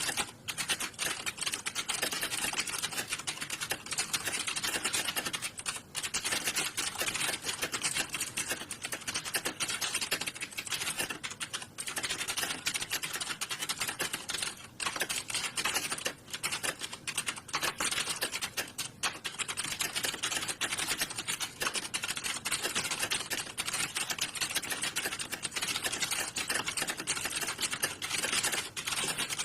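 Fast, continuous typing on a computer keyboard, a dense stream of key clicks with a few brief pauses.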